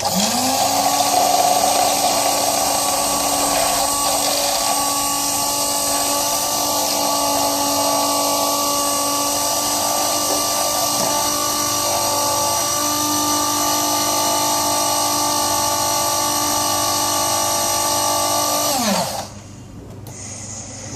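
Small electric drink mixer whipping espresso with ice and sugar into a froth. Its motor spins up at once, runs at a steady high pitch, then winds down with a falling pitch near the end.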